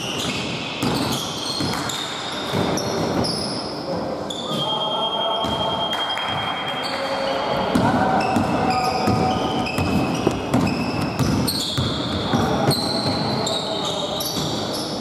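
Basketball game play in a large gym: a basketball bouncing on the hardwood floor, sneakers squeaking in short high chirps, and players calling out, echoing in the hall.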